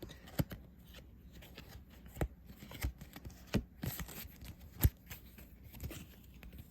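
Trading cards being handled: irregular sharp taps and rustles of card stock, about seven in all, the loudest a little before five seconds in.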